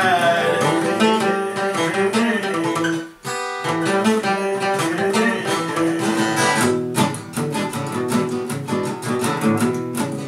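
Two acoustic guitars strumming chords together in an instrumental passage, the last held sung note falling away at the start. The playing stops for a moment about three seconds in, then picks up again.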